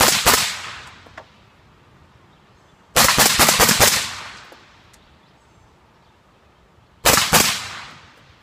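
A 14.5-inch AR-15 in .223 fitted with a Silencerco Saker 556 suppressor firing three quick strings: a double shot, then five or six rapid shots about three seconds in, then another double near the end. Each string is followed by about a second of echo.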